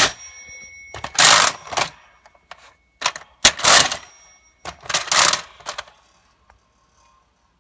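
Tomy Tutor Typer toy typewriter being worked: a series of loud rasping mechanical strokes, each about half a second long, with a short ringing bell tone after some of them.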